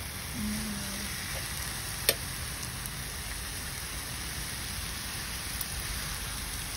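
Pork belly, pork shoulder and ribeye slices sizzling on a round Korean barbecue grill pan, a steady hiss, with one sharp click about two seconds in.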